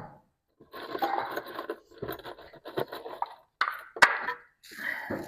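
Wooden boards scraping and knocking as they are handled and fitted against the wall, in a run of short scrapes with one sharp knock about four seconds in.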